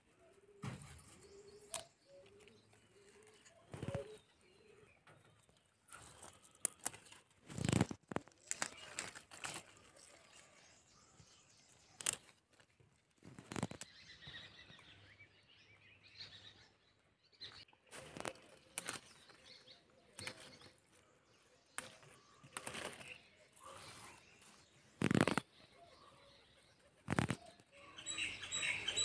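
Irregular snaps and rustles of haakh (Kashmiri collard green) leaves being picked off the plants by hand, a few sharp snaps standing out. Birds chirp faintly now and then.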